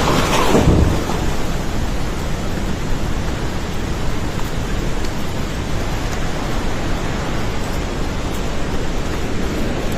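Flash-flood river water rushing past in a steady, dense rush of noise, a little louder in the first second.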